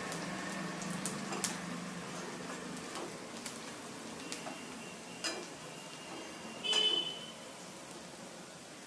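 Chopped onions frying in a steel kadai while a spatula stirs and scrapes them, giving a sizzle with scattered sharp clicks. About seven seconds in, a louder ringing clink as the spatula strikes the pan. A low hum fades out about two seconds in.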